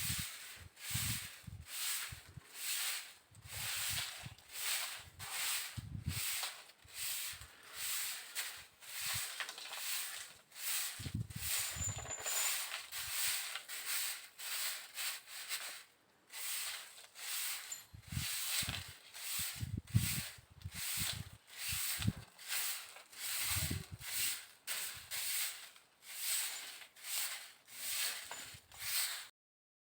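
Rhythmic rasping strokes, about two a second, of a blade cutting through banana flower, with occasional soft thuds.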